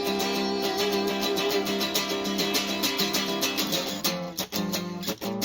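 Guitar music with no singing: a held chord rings, then choppy strummed chords with short breaks between them start about four seconds in.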